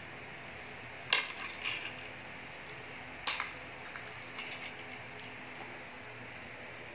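Bunch of metal keys clinking and jingling as it is hung on the metal hooks of a wooden wall key holder. There are two sharp clinks with a brief jingle, about a second in and about three seconds in, then a few faint taps.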